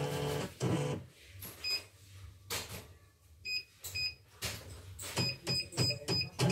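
CNY portable embroidery machine: a steady machine hum stops about half a second in, then its touch-screen control panel gives a run of short high beeps as buttons are pressed, more often towards the end, with light taps on the panel.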